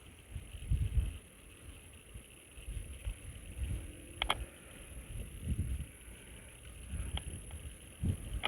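Strong wind gusting across the microphone, a low buffeting rumble that swells and dies away every second or so. A single short, sharp click sounds about four seconds in.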